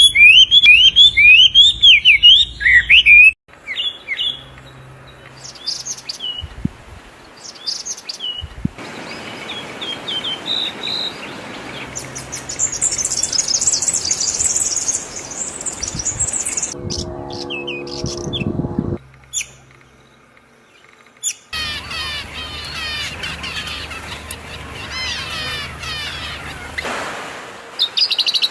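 Wild birds singing and chirping in a run of short outdoor recordings spliced together, each ending in an abrupt cut. It opens with loud rapid chirping, has a high fast trill in the middle and a lower, fuller call a little later, then ends with layered chirping over a steady hiss.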